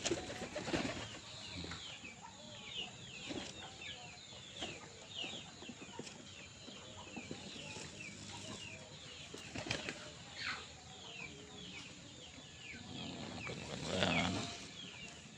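A flock of domestic pigeons feeding on grain: wings flapping and sharp pecking clicks, with a steady run of short, high, falling chirps, and a louder, lower sound near the end.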